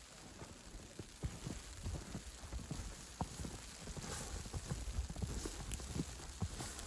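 Footsteps crunching in fresh snow, an uneven run of soft crunches that starts about a second in and grows louder.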